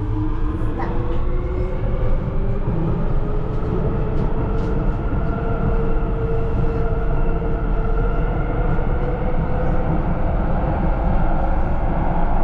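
Copenhagen Metro train running through a tunnel, heard from inside the train: a steady rumble of wheels on rail under an electric whine that rises slowly in pitch for the first few seconds as the train gathers speed, then holds.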